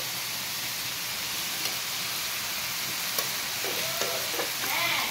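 Leafy greens frying in a hot pan with oil, a steady sizzling hiss, with a couple of faint clicks.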